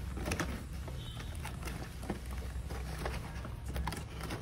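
Handling of a toy car's retail box: scattered light crackles and taps as the sealing sticker is peeled and the packaging is opened, over a steady low hum.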